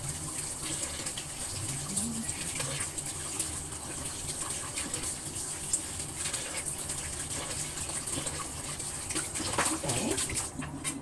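Water running from a kitchen sink tap in a steady rush, splashing in the sink as hands wash food under it.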